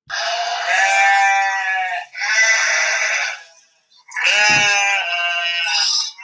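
A lamb bleating: three long, wavering bleats with short pauses between them.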